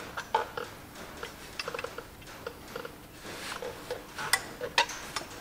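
Light metallic clicks and clinks of a tractor dual clutch assembly being handled and seated against the flywheel, with two sharper metal knocks near the end.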